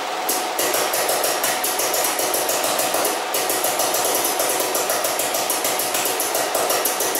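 Homemade pulse detonation engine running, firing a rapid, even string of sharp pulses over a steady tone.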